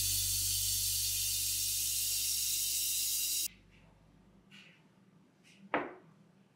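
Kitchen faucet running water steadily into the sink, stopping abruptly about three and a half seconds in. Then faint rustles of dried flower stems and a single sharp knock near the end as a small ceramic bud vase is set down on the counter.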